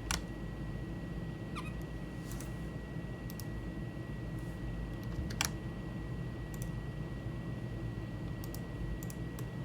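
Scattered computer mouse clicks and keyboard key presses, about nine short clicks spaced unevenly, over a steady low background hum.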